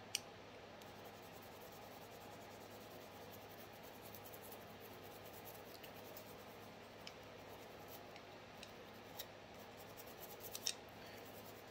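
Faint scrubbing of a cleaning brush on the outside of a Glock pistol barrel, with a few light clicks of metal parts.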